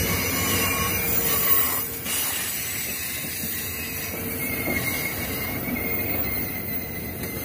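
Amtrak Superliner bilevel passenger cars rolling past, their wheels on the rails making a steady rumble with a few faint, thin, high tones running over it.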